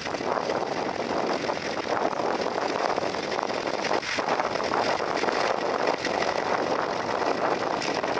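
International B-275 tractor engine running steadily under load while pulling a plough through the soil.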